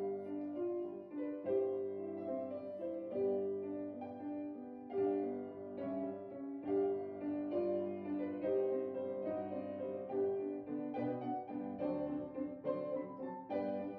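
Background piano music: a slow melody of single notes over steadier lower notes.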